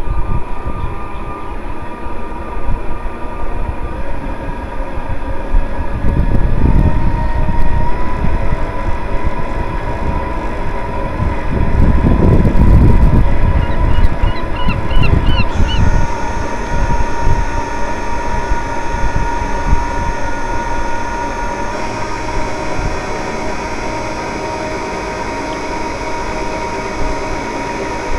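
Onboard sound of a radio-controlled Titanic model under way: a steady whine from its electric drive motors, with gusts of wind buffeting the microphone twice, about a quarter of the way in and near the middle.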